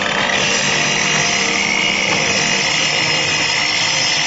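Prescott PT0825401 table-top miter saw cutting through an aluminium extrusion: the motor runs steadily under load, with a high, steady whine over harsh cutting noise.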